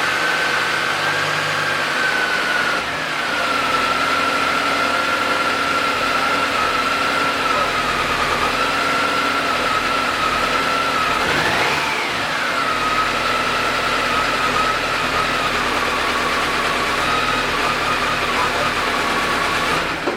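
1993 Toyota Camry's 5S-FE four-cylinder engine idling roughly from a misfire, with a steady high whine over the running. About halfway through, the revs rise briefly and fall back to idle.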